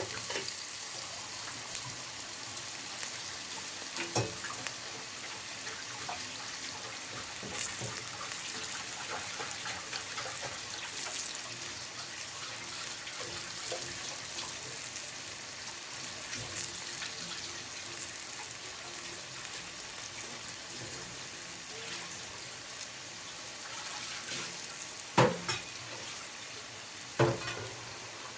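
Sauce simmering in a frying pan around battered vegetables: a steady sizzling hiss with fine crackling. Two sharp knocks near the end.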